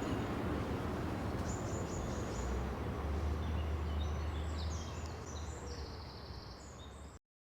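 Street ambience: a steady low rumble with small birds chirping high and quick over it. It fades down and then cuts off to silence near the end.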